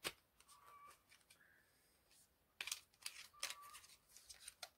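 Faint clicks and crinkles of a makeup palette's packaging being handled and opened, a few sharp clicks spread through the quiet.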